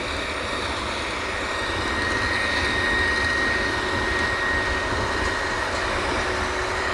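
Drilling rig machinery running: a steady mechanical drone with a thin high whine held throughout, growing a little louder about two seconds in.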